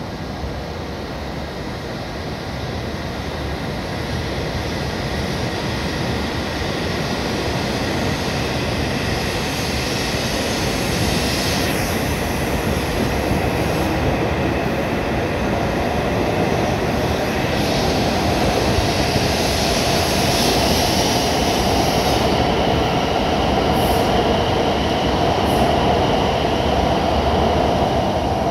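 E7/W7-series Shinkansen train pulling out of the station and gathering speed alongside the platform. The running noise of its motors and wheels grows steadily louder over the whole stretch, with a humming tone that strengthens toward the end.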